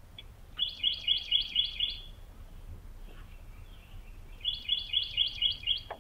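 A bird chirping: two quick runs of about six repeated high notes, about four a second, each run lasting roughly a second and a half, the second starting about two and a half seconds after the first ends.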